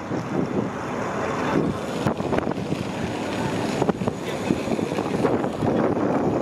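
Wind buffeting the microphone outdoors, a steady rough rumble, with a couple of short knocks about two and four seconds in.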